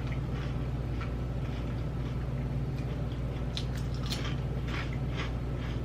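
Close-up chewing and crunching of thin, crispy Lay's dill pickle potato chips, the crunches coming thickest a little past halfway, over a steady low hum.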